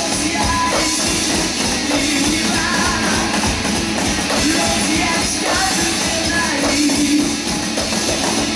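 A hard-rock recording with sung vocals, guitars and bass, played along on a Roland TD-25 electronic drum kit, the drum hits mixed in with the track. Loud and dense throughout.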